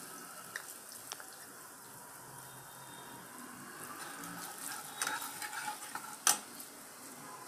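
Spice masala frying in oil in a metal kadhai, with a steady soft sizzle. A flat metal spatula stirs and scrapes the pan, giving scattered clinks that bunch up about five seconds in; the sharpest clink comes about six seconds in.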